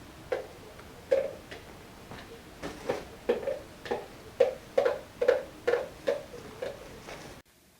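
Shetland Sheepdog puppy barking in a quick string of short, sharp yaps, about two a second, which cuts off abruptly near the end.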